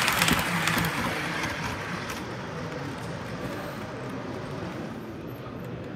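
Model trains running on the track. A close rushing rattle from a fast-passing unit fades away over the first two seconds and leaves a quieter, steady running noise.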